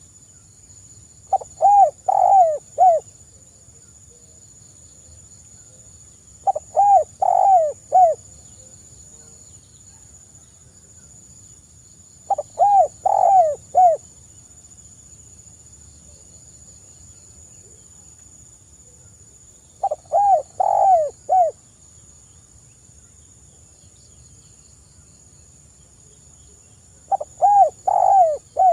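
A spotted dove (tekukur) singing its cooing song five times: each phrase is a quick run of about four soft, arching coo notes lasting about a second and a half, repeated every five to seven seconds.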